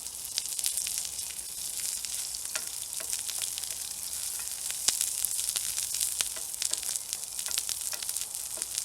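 Fiddleheads frying in oil in a frying pan: a steady high sizzle with frequent small pops and crackles.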